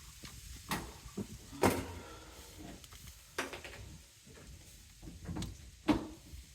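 A few sharp knocks and clicks with faint scraping, from stiff electrical service wire and tools being worked by hand.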